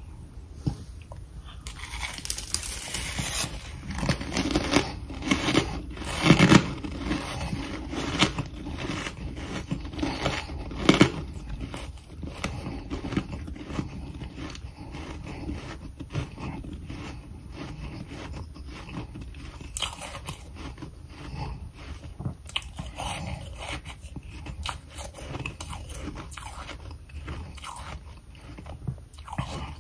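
Close-up crunching and chewing of a mouthful of powdery humidifier freezer frost. The loudest crunches come in the first dozen seconds, followed by a steadier run of softer crunches.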